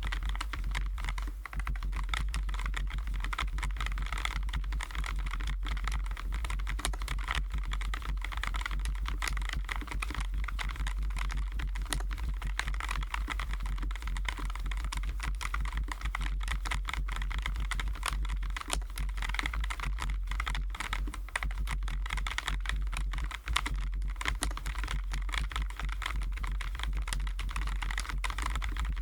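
Continuous fast typing on a Keychron J9 low-profile mechanical keyboard with Keychron Milk POM switches: a dense, unbroken stream of keystroke clicks, with a steady low hum underneath.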